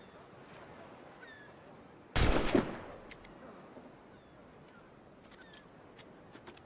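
A single musket shot about two seconds in: one loud blast that dies away within about half a second. A few faint clicks follow near the end.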